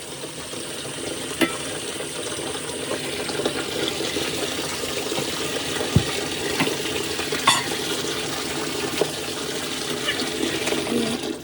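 Water running steadily with a rushing hiss, broken by a few light clicks or knocks.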